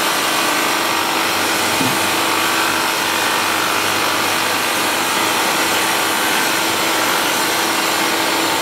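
Machine spindle running at a steady speed, turning a grinding stone against the oil-flooded face of an automatic transmission bell housing: an even, unbroken whirring grind with a constant hum.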